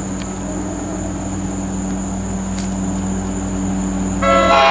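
Steady low drone of an approaching diesel commuter train, growing slightly louder; about four seconds in, the locomotive's multi-note air horn starts sounding, the loudest thing here.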